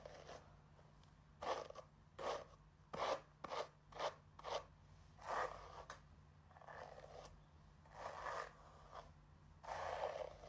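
A hairbrush dragged through long wet hair: about ten short brushing strokes at uneven intervals, each a soft scratchy swish.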